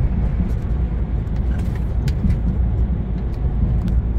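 Steady low rumble of a Scania truck's engine and tyres while driving, heard from inside the cab, with a few light clicks.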